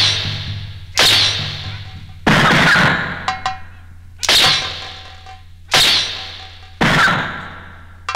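Loud, sharp percussion strikes, about one a second, each ringing out and fading before the next, over a steady low hum.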